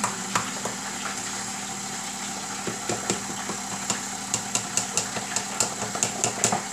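KitchenAid stand mixer's motor running steadily on its slow Stir speed, working flour into pizza dough. In the second half a quick run of light ticks sounds over the hum, about three a second.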